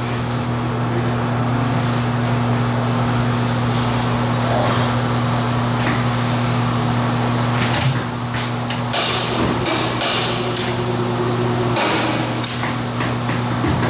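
Wulftec WSMHPA-200 turntable stretch wrapper running: a steady low motor hum with frequent sharp clicks and knocks, more of them in the second half. A thin high whine stops about five seconds in.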